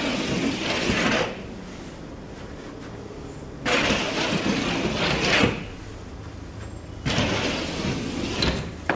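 A drawing stick scraping across a painted wall in large circular sweeps: three scratchy strokes of about two seconds each, with short pauses between them.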